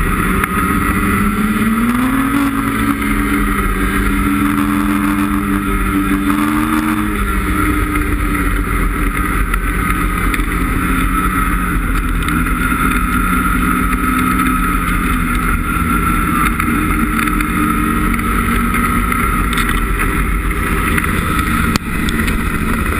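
Ski-Doo snowmobile's 850 E-TEC two-stroke twin running steadily at trail cruising speed. The engine pitch rises about two seconds in, holds, and eases back down around seven seconds, then stays steady.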